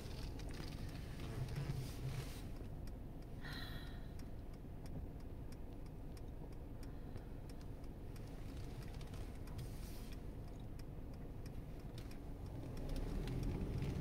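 A car's turn-signal indicator ticks steadily inside the cabin, over the low hum of the car rolling slowly. The hum grows louder near the end.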